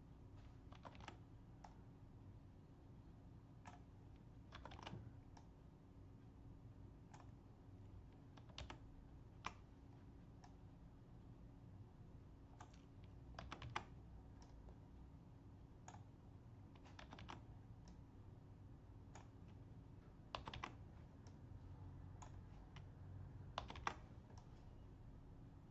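Computer mouse clicks, sparse and irregular, often in quick pairs or threes, over a faint steady hum.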